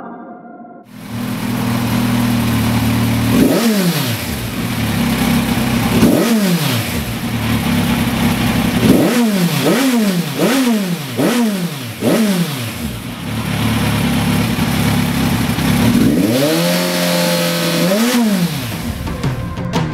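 2016 Kawasaki Z1000's inline four-cylinder engine breathing through dual Lextek CP1 stubby silencers, idling and revved in free blips: two single blips, then a quick run of about five, then a longer rev held for a second or so before it drops back to idle.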